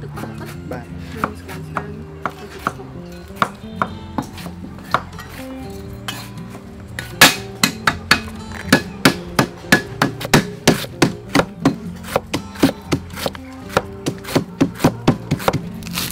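Cleaver chopping lemongrass stalks on a wooden cutting board in sharp knocks, scattered at first, then a quick run of about three chops a second from about seven seconds in. Background music plays under the chopping.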